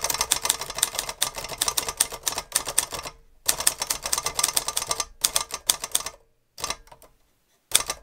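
Olivetti Lettera 22 portable manual typewriter being typed on quickly, a rapid clatter of keystrokes and typebars striking. The typing comes in runs: it breaks off briefly about three seconds in, and over the last two seconds it thins to a few short bursts.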